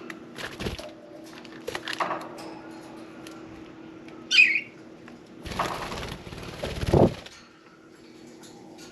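Pet budgerigar giving one sharp chirp a little after four seconds in, then a burst of rapid wing fluttering lasting about a second and a half, over a faint steady hum.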